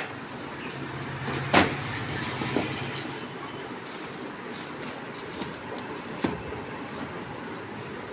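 Hands handling items in a hard plastic carrying case: a few sharp clicks and knocks, the loudest about a second and a half in, as a foam insert and small packed accessories are moved. A low steady hum runs underneath for about two seconds near the start.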